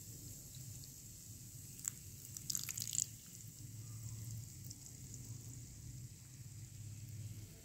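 Faint dripping and trickling of a thin stream of water poured from a steel bowl onto lumps of multani mitti (Fuller's earth) clay, with a short run of sharp clicks about two to three seconds in.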